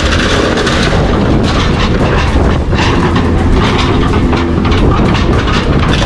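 Loud, continuous metal clanking and grinding, with many rapid impacts over a heavy rumble.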